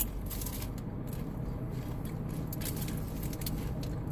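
Steady low hum of an idling car heard inside its cabin, with faint scattered clicks of someone chewing a crunchy snack.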